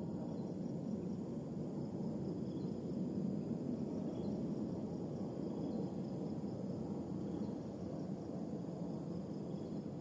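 Steady low outdoor background noise with a few faint, scattered high chirps.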